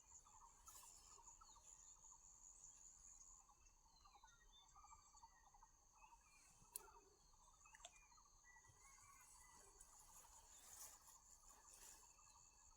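Faint, steady chorus of insects chirring, with two light clicks near the middle.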